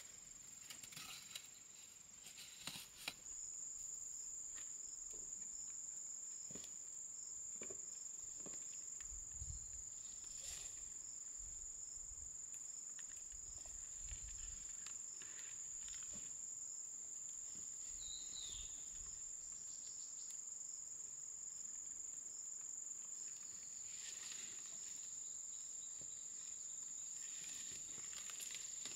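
Insects making a steady high-pitched drone that gets louder about three seconds in, with scattered soft knocks and rustles over it.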